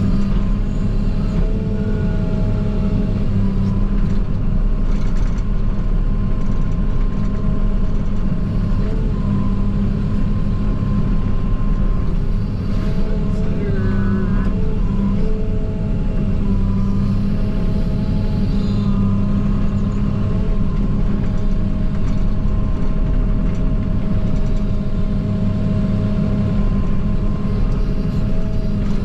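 JCB 48Z-1 mini excavator's diesel engine running under load, heard from inside the cab. Steady whining tones ride over the engine and shift in pitch now and then as the machine works.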